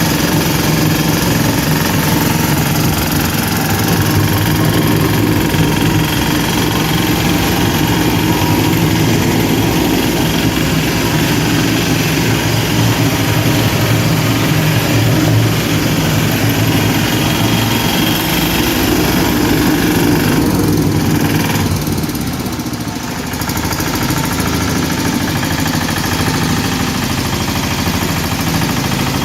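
Engine of a double-drum walk-behind vibratory road roller running steadily, with a brief dip in level about 22 seconds in.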